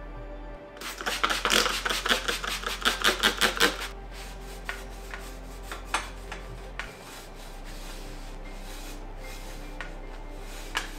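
Quick run of sharp clicks and rattles from hands working on bicycle parts, lasting about three seconds, then scattered single clicks, over soft background music.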